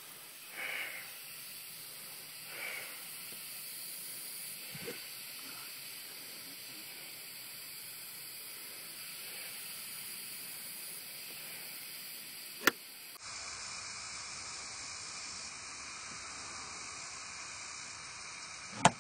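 Steady outdoor hiss, broken twice by a single sharp crack of a golf club striking the ball: once about two-thirds through and again near the end.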